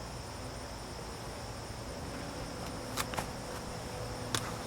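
A steady high-pitched chorus of insects, crickets most likely, at two pitches with no pause. A few sharp clicks cut through it about three seconds in, twice in quick succession, and again near the end.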